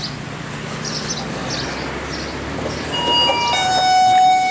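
Electronic entry chime of a 7-Eleven convenience store's door, sounding about three seconds in: a few short tones stepping down to a long lower note held for about a second.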